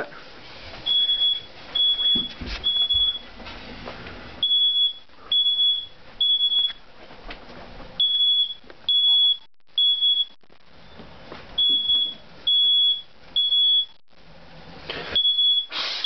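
Smoke alarm sounding its evacuation pattern: three high-pitched beeps, a pause, then three more, repeating steadily. It has been tripped by cooking smoke from food burning on the oven's burners. A few faint knocks from handling come through underneath.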